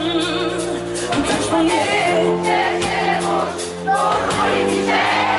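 Live pop band playing on stage, electric guitar and drums under held chords, with a woman singing, recorded from within the concert crowd.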